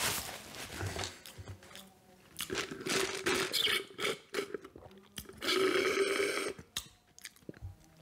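Close-up eating sounds: chewing and crunching with short bites, and two longer drawn-out pitched mouth sounds in the middle, the second about five seconds in.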